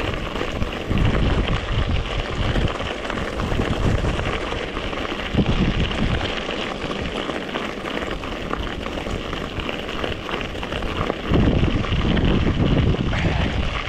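Wind buffeting the microphone of a camera on a mountain bike being ridden, a steady hiss with heavy rumbling gusts about a second in and again near the end.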